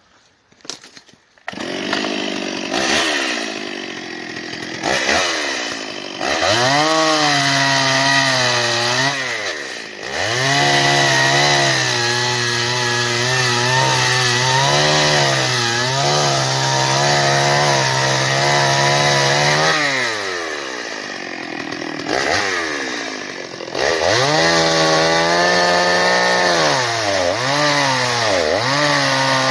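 Two-stroke chainsaw cutting through a fallen tree, revved repeatedly to full throttle with its pitch wavering under load as the chain bites. Between cuts it drops back toward idle several times before revving up again.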